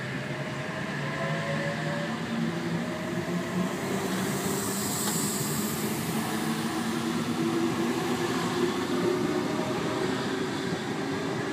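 A Sydney Trains OSCAR (H set) electric train pulling out and passing close by. Its traction motors whine, rising in pitch as it gathers speed over the first few seconds, over a steady rumble of the wheels on the rails. There is a brief high hiss about halfway through.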